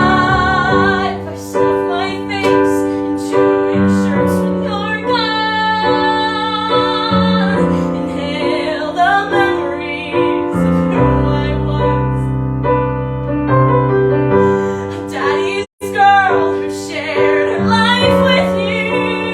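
Piano accompanying a female voice singing long, wavering notes with vibrato in an art song. The sound cuts out for an instant about three-quarters of the way through.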